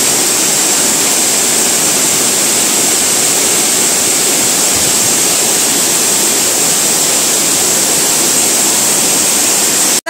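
Waterfall rushing steadily and loudly, water cascading down several rock tiers into a pool close by.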